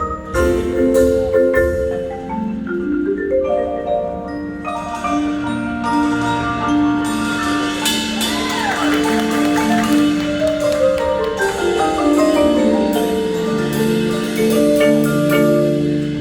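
Marching band's front ensemble playing a mallet-percussion passage, marimba with bell-like tones, held notes and a stepwise falling run in the second half.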